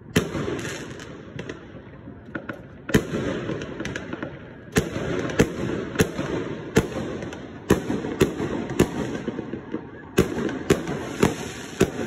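Aerial fireworks bursting overhead: about twenty sharp bangs in an irregular, quickening series, with a steady rumble of more distant fireworks between them.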